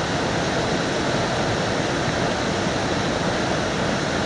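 Steady rushing roar of a large waterfall, Aberdeen Falls, an even noise that does not change.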